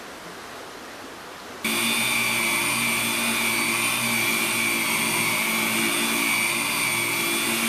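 A steady hiss of running water, then about 1.7 s in a wet angle grinder fitted with a 100-grit diamond pad switches on abruptly and runs steadily with a high whine, grinding agate.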